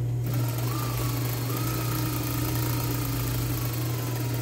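Industrial lockstitch sewing machine running at a steady speed, stitching a side seam through denim. It starts a moment in and stops near the end, over a steady low hum.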